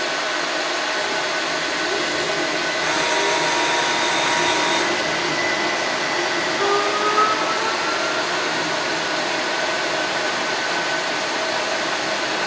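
Interior running noise of a low-floor electric streetcar: a steady hum with faint whining tones, one of which rises briefly about seven seconds in.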